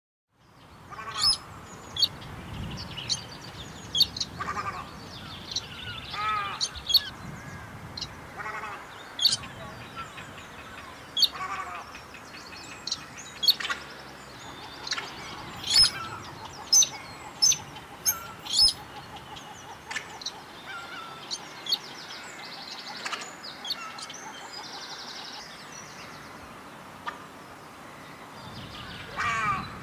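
White-browed crake calling: sharp nasal notes and short chattering phrases, scattered irregularly, over a faint steady background.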